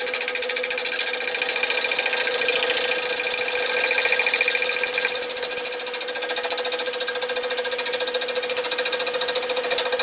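Nova 16/24 wood lathe spinning an out-of-round oak blank while a gouge cuts it: a steady whine under rapid, rhythmic knocking as the tool meets the uneven wood on each turn.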